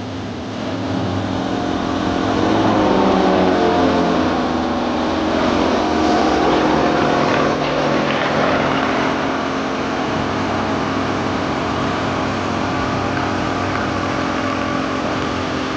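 Propeller engines of two MX2 aerobatic aircraft flying overhead in formation, the pitch sliding as they pass. The sound grows louder a couple of seconds in and again about six seconds in, then eases off.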